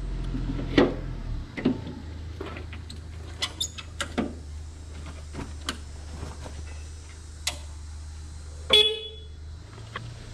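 Electric pallet jack horn sounding once near the end, a short buzzy beep. Before it come scattered clicks and knocks over a steady low hum.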